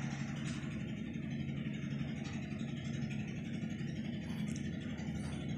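Steady low mechanical hum with no break in it.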